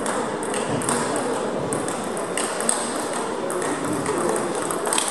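Table tennis rally: a run of sharp clicks as the ball is struck by the rubber-faced bats and bounces on the table, coming about every half second to a second. Under it is a steady murmur of voices in the hall.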